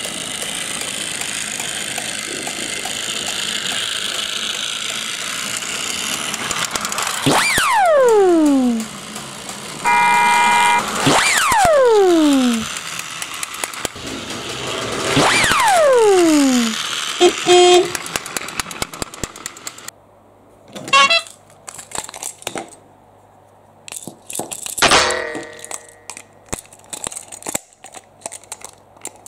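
Battery-powered plastic toy train set: a running, rattling train on plastic track, three falling whistle-like sound effects and a short toot. After that come scattered plastic clicks and a knock.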